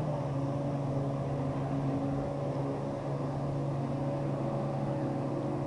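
Jet ski engine running steadily at one pitch, neither revving up nor slowing.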